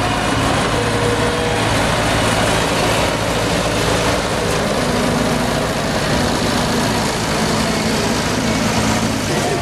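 Vintage tractor engines running at low revs as the tractors drive slowly past one after another, a steady low engine note with a second, higher engine note joining about five seconds in.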